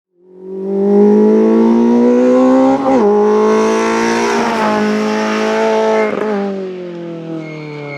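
Peugeot 106 rally car engine under hard acceleration, pulling up through the gears, its note rising and then dropping sharply at each upshift.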